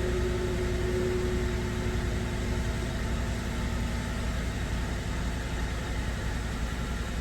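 2009 Acura TSX's 2.4-litre four-cylinder engine running with a steady low rumble, still misfiring after new spark plugs were fitted.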